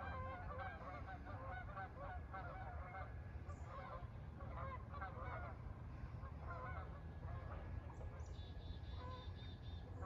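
Geese honking, many short calls repeating throughout, faint over a low steady rumble.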